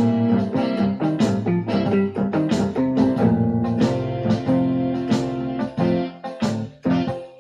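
Electronic keyboard playing blues: held chords under a low bass line, with sharply struck notes on top. The playing breaks off for brief moments twice near the end.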